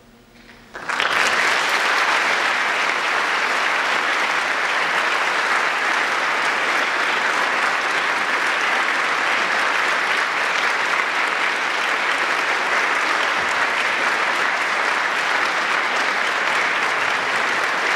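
Concert audience applauding, breaking out suddenly about a second in after a short hush and then going on steadily.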